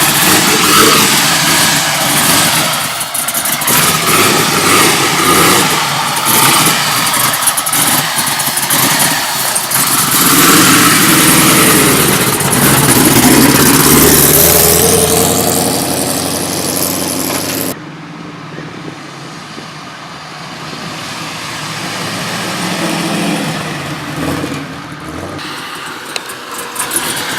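Car engine running loud under way, its pitch rising and falling as it accelerates and shifts. About two-thirds through it cuts abruptly to a quieter, steadier engine drone.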